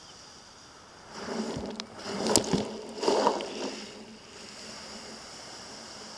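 Surf washing in among rounded beach cobbles close by: a noisy surge that swells for about three seconds, with a few sharp clacks of stones, over a steady background hiss of the sea.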